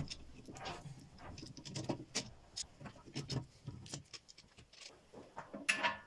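Handling noise: irregular light knocks, clicks and scrapes as a wooden block held in bar clamps is shifted about on a lathe bed, with one louder clink near the end.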